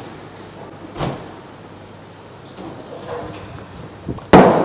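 A bowling ball thuds onto the lane about a second in, rolls down it, and crashes into the pins near the end with a loud clatter; the throw leaves pins standing for a spare.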